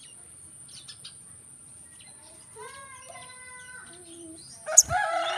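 Brown-throated sunbird (kolibri kelapa) calling: a few faint chirps, then a drawn-out call with several steady tones in the middle, and a loud, sharp rising call near the end. A steady high-pitched hiss runs underneath.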